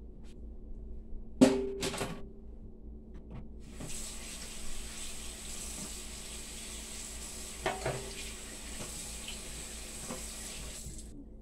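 Two sharp clunks, then a kitchen faucet running steadily into a sink for about seven seconds, with a knock partway through, until it is shut off. The first clunk is the loudest sound.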